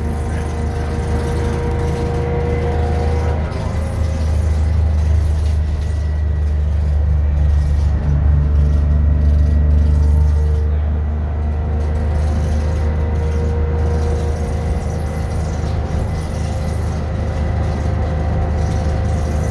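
Detroit Diesel 6V71N two-stroke V6 diesel of a 1982 GM New Look bus, heard from inside the cabin while the bus is under way. A steady low drone grows louder from about four seconds in, is loudest around ten seconds, then eases off.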